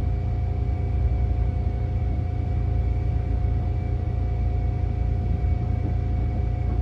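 Seibu 10000 series electric train running at steady speed, heard from inside the passenger car: a deep rumble of wheels on track under a steady whine from its Hitachi IGBT inverter traction drive.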